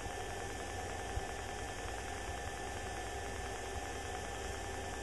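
Steady cabin drone of a light high-wing plane in cruise flight: engine, propeller and airflow noise heard as an even hiss with a low hum. A faint click about a second in.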